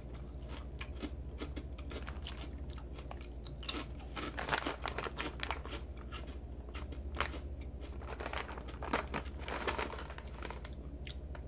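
Crunchy chewing of a tubular puffed rice tteokbokki-flavoured snack: irregular crisp crunches, thickest about halfway through and again near the end, over a steady low hum.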